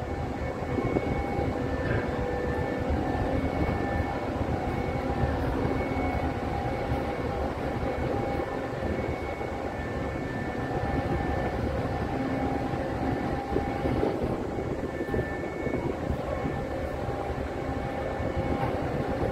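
Steady low rumble of heavy engines running, with faint steady humming tones that come and go above it.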